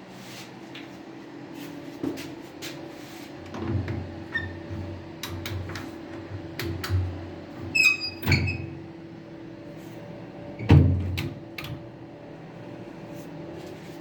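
Scattered knocks, clicks and thumps of hand work during a shower repair, with a brief ringing clink a little before the middle, over a steady low hum. The heaviest thump comes about three-quarters of the way through.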